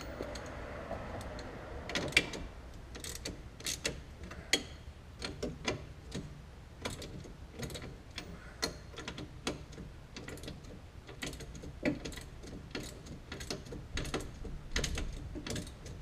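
Socket ratchet clicking in short irregular runs, with metallic ticks and knocks, while working the nut on a sway bar end link. The nut is not coming off because the end link's ball stud turns along with it.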